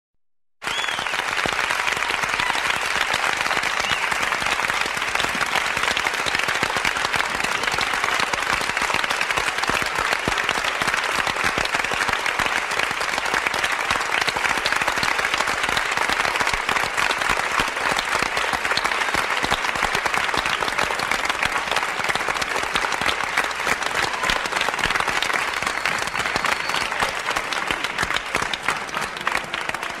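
A large crowd applauding steadily in an echoing hall, a dense wash of clapping that starts abruptly just after the beginning and eases a little near the end.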